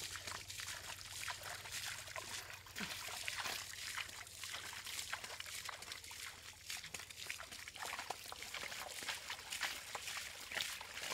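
Water trickling and splashing, with many small, irregular splashes over a steady hiss.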